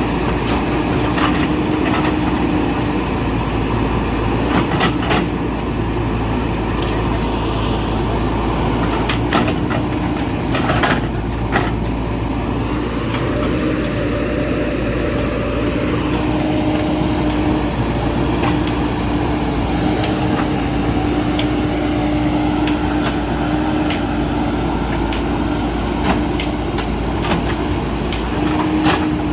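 JCB backhoe loader's diesel engine running steadily, with a few short sharp knocks here and there.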